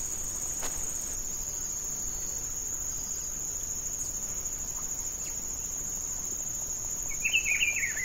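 Insects trilling in a steady, high-pitched drone, with a brief chirping call about seven seconds in.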